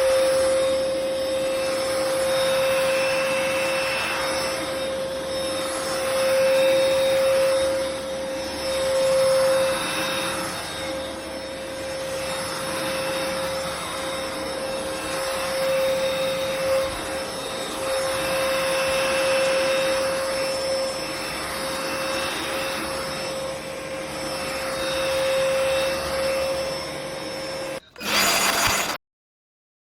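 NADALY 500 W cordless stick vacuum running with a steady high whine over the rush of air, which swells and eases every two seconds or so. Near the end it cuts out suddenly, returns for about a second, then stops.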